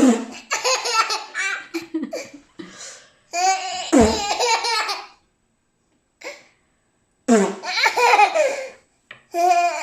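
Baby laughing in repeated bursts, with a pause of about two seconds in the middle.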